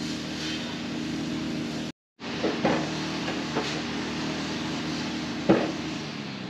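An engine running steadily with a low hum. The sound cuts out briefly about two seconds in, and there are a few short knocks, the loudest about five and a half seconds in.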